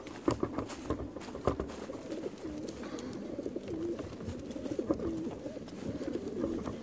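A crowd of racing pigeons cooing together in their transport crates, many low calls overlapping steadily, with a few scattered clicks and knocks.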